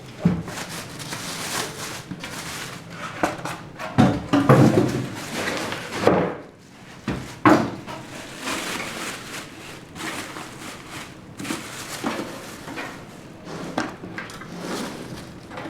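A mid-tower PC case being unboxed and lifted out of its packaging: rustling of the packing with repeated knocks and thumps, the loudest about four to five seconds in and again about seven and a half seconds in.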